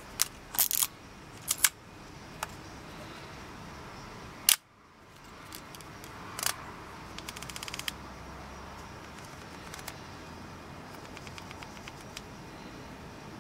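Minolta XG-M 35mm SLR's shutter, mirror and lens aperture mechanism working: a series of sharp mechanical clicks, the loudest about four and a half seconds in, then a quick run of small ticks and a few faint ones near the end.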